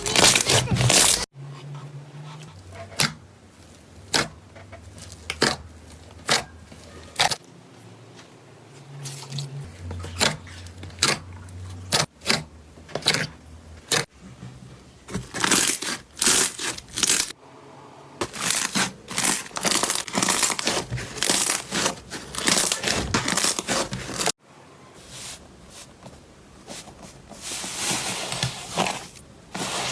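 Slime being pressed and squeezed, giving sticky crackling and popping clicks. The sound is cut off abruptly several times, as one short clip gives way to the next.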